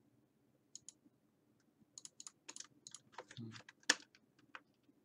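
Computer keyboard being typed on: a dozen or so irregular keystrokes, bunched together in the second half, with one sharper clack about four seconds in.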